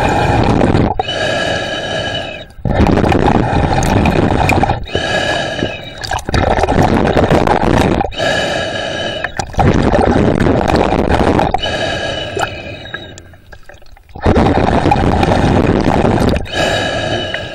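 Snorkeler breathing heavily through a snorkel tube, one breath about every three and a half seconds, with a hollow ringing tone in part of each breath.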